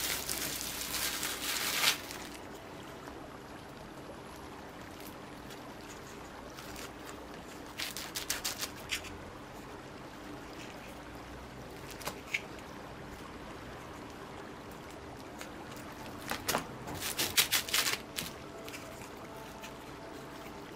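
Plastic cling film crinkling loudly as it is peeled back from a sheet of cookie dough for the first two seconds. Later come short bursts of crackling film and small taps, twice in clusters and once on its own, as a plastic round cutter is pressed through the dough lying on the film.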